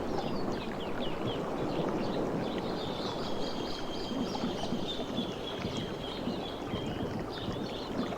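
Sea waves washing on the shore, the water easing off after a breaking wave. Birds chirp over it, with one long, slightly falling call in the middle.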